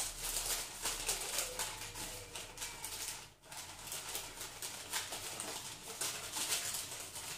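Baking parchment rustling and crinkling in irregular little crackles as hands press a rolled dough into a parchment-lined loaf tin, with a short pause about three and a half seconds in.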